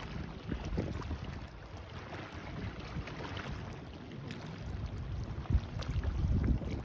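Seashore ambience: wind buffeting the microphone over small waves washing in, with a louder gust near the end.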